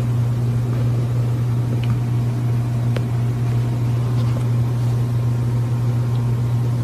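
Steady low mechanical hum, like a motor or appliance running, with a couple of faint clicks about two and three seconds in.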